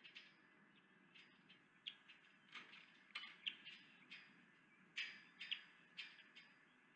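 Ospreys calling: a faint run of short, high chirps, coming one or two a second.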